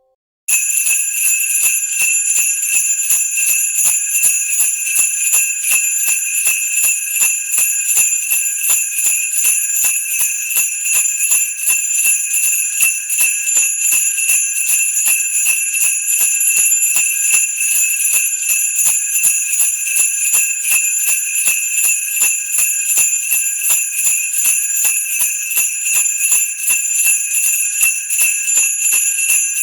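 Jingle bells shaken continuously in a steady, even rhythm, starting about half a second in: a bright, dense metallic jingling that keeps the same level throughout.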